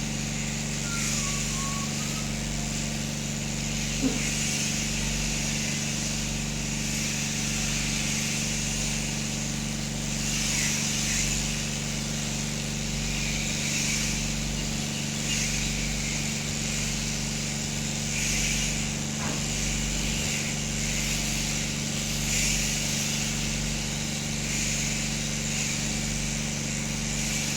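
Electric sheep-shearing clippers running with a steady motor hum and a hissing cutting noise that swells and fades. A single sharp click comes about four seconds in.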